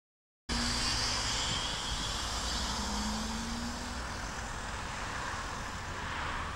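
Street traffic noise: a steady rush of passing vehicles with a low rumble, cutting in abruptly about half a second in.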